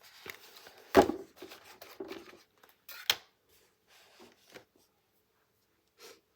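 Art supplies being handled on a table as a chalk palette is brought out: a sharp knock about a second in, another about three seconds in, and light clicks and rustles between them, then it goes still.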